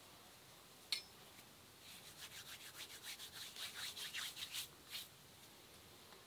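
Hands rubbing together, a quick run of dry scratchy strokes lasting about three seconds, brushing off or crumbling dry spice. A single sharp click comes about a second in and is the loudest sound.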